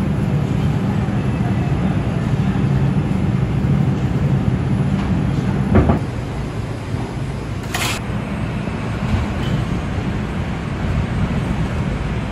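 Inside an R142 subway car riding the elevated line: a steady low rumble of the train's wheels and motors. A sharp knock comes about six seconds in, and a brief hiss shortly after.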